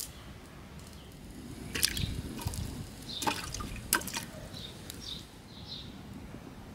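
Whole onions and carrots dropped into a large aluminium stockpot of water, plopping in with three splashes about a second apart.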